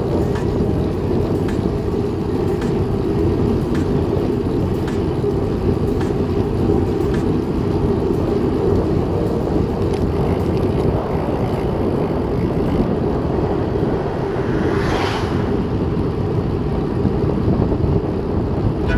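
Steady wind rumble on the microphone of a camera carried on a moving road bike, with a brief whoosh that swells and fades about fifteen seconds in.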